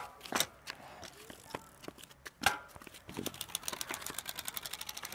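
A card fixed to a bicycle flapping against the turning spokes as the bike is ridden off, to make a motorbike-like sound. It gives a fast clatter of clicks that starts about three seconds in and speeds up as the wheel gains speed, after a few knocks from the bike being handled.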